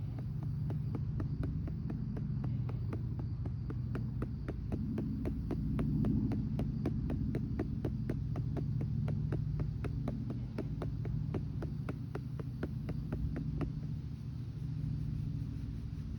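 Steady rhythmic pats, about three a second, on the back of a RealCare infant simulator to burp it, over a low steady hum. The patting stops near the end.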